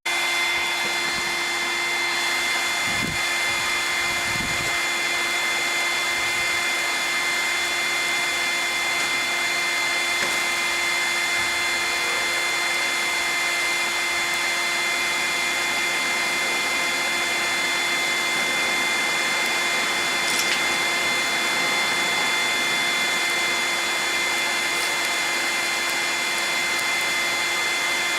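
Small electric blower switched on and running steadily with a constant motor whine, forcing air into a charcoal forge to fire it.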